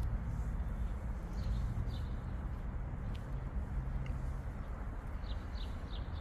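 Steady low rumble of outdoor station and construction-site background noise, with a few short high chirps about one and a half seconds in and again near the end.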